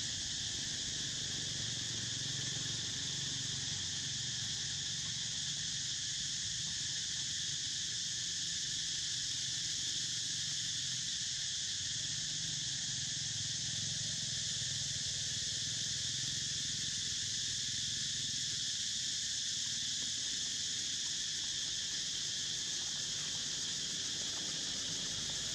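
A steady, unbroken insect chorus: a high shrill in several bands held at constant pitch, with a faint low rumble beneath.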